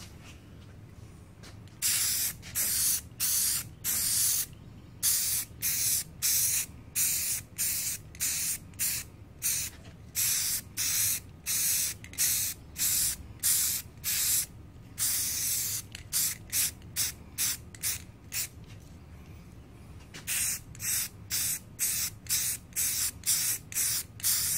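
Aerosol spray-paint can spraying in many short bursts, roughly two a second, with one longer burst in the middle and a brief pause of a couple of seconds later on.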